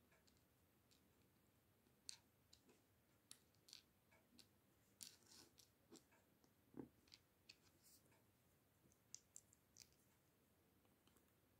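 Faint, irregular clicks and taps of small plastic LEGO pieces being picked up from a cutting mat and pressed together, about fifteen in several seconds, with a slightly duller tap near the middle.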